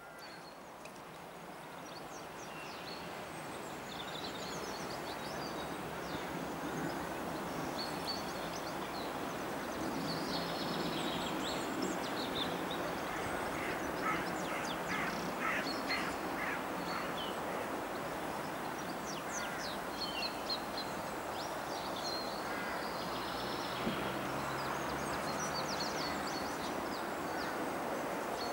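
Riverbank ambience: birds calling with scattered short chirps over a steady background hiss, with a quick run of repeated calls in the middle.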